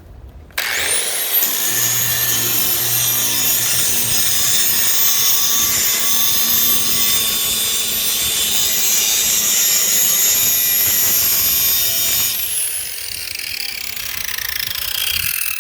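Corded angle grinder with a grinding wheel switched on: its high whine climbs quickly to full speed about half a second in and runs steadily for roughly twelve seconds. It is then switched off, and the whine falls as the wheel spins down.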